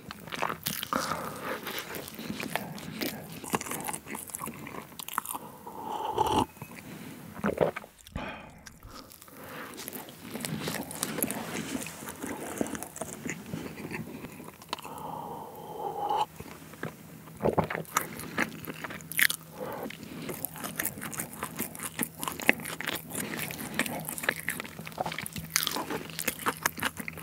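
Close-miked chewing of soft Victoria sponge cake, with steady wet mouth clicks and smacks. About halfway through there is a sip and swallow from a cup.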